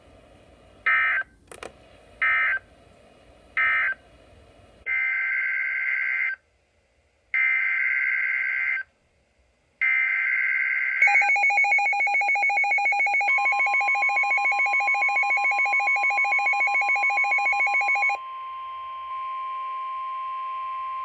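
NOAA Weather Radio Specific Area Message Encoding (SAME) data bursts: three short buzzy end-of-message bursts, then three longer header bursts announcing the next warning. These are followed about 11 s in by a rapidly pulsing alarm. Under it a steady warning alarm tone near 1 kHz begins and holds on after the pulsing stops, about 18 s in.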